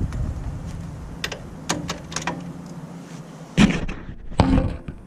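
Light metallic clicks and taps, then two heavy clunks a little under a second apart, as parts and tools are handled while taking the bolts off a car's front strut assembly.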